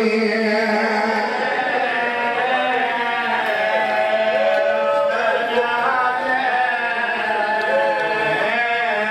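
Men's voices chanting a slow, melodic Muharram lament (noha), with long held and bending notes.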